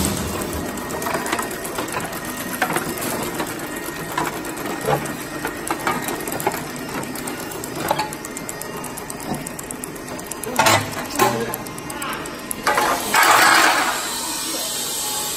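Steel door-frame roll forming machine running, the strip passing through its roller stands with a steady mechanical run and scattered light metallic clicks. Two sharp metal knocks come a little past halfway, and a loud clatter of about a second near the end as the formed steel profile is handled.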